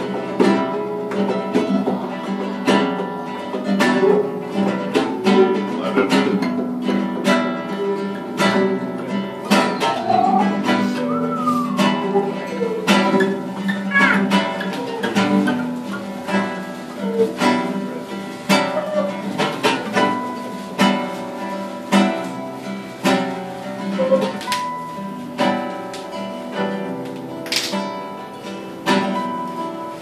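Several acoustic guitars strumming a steady rhythm together, with a harmonica playing along and a few sliding notes in the middle.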